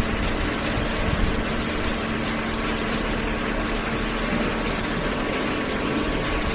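Waste paper baler running: a steady machine hum with a constant low tone.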